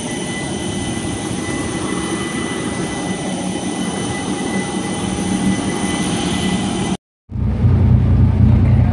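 Jet airliner on the airport apron, a steady rushing noise with several high whining tones. About seven seconds in it cuts off abruptly and gives way to a ferry cabin filled with a deep, steady engine hum.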